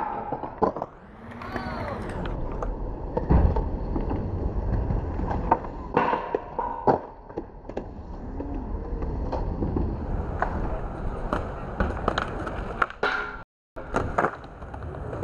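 Skateboard wheels rolling on concrete, with sharp tail pops, landing slaps and scraping on a metal flat bar as tricks are done.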